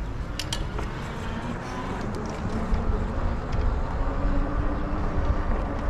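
Wind rumbling on the microphone while riding an e-bike, with a few sharp clicks about half a second in and a faint steady hum underneath.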